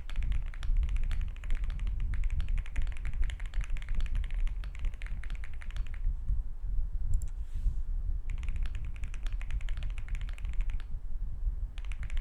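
Fast typing on a Monsgeek M1W mechanical keyboard fitted with lubed Akko V3 Cream Yellow Pro switches and a tempest-modded PCB, giving a deep, thocky keystroke sound. The typing runs in a rapid stream, pauses for about two seconds around the middle, resumes, and stops again shortly before the end.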